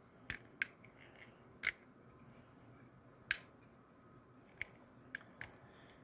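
Sharp clicks and snaps from a Craftsman CMHT10930 folding utility knife as its blade is worked on the pivot and the liner lock engages, about seven in all, the loudest a little past three seconds in. The pivot action is rough and not quiet, which the owner takes as a sign that it needs adjusting.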